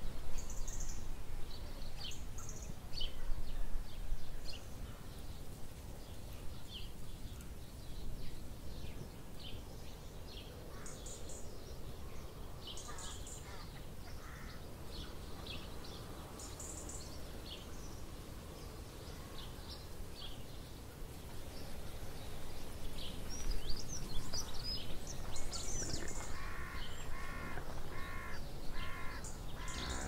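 Wild birds chirping and singing in short phrases. Near the end a bird gives a run of about five harsh, crow-like caws.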